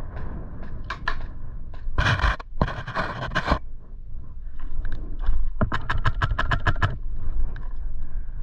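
Airsoft gun firing, in two rapid strings of shots: a dense one about two seconds in lasting about a second and a half, and an even one of about ten shots a second near the middle. Scraping and rustling of gear runs underneath.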